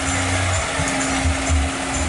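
Excavator at work dredging a river: its diesel engine running with a steady hum and irregular low pulses.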